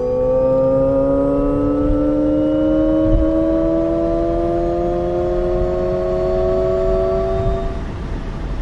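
Alpine A290 electric hatchback's synthetic "Alternative Sound" drive sound: a hum of several tones rising slowly and steadily in pitch as the car gathers speed, over low tyre and road rumble. The tone fades out near the end.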